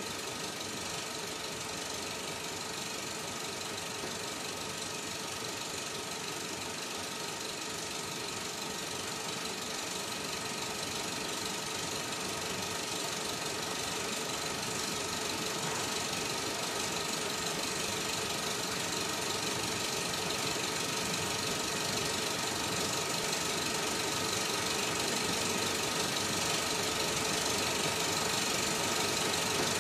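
Film projector running with a steady mechanical clatter, slowly getting a little louder.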